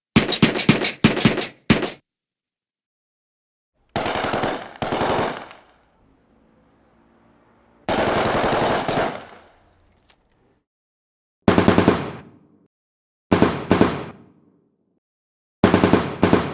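Bursts of automatic gunfire, each group of rapid shots lasting about a second and trailing off in an echo, separated by gaps of silence: six or so bursts in all.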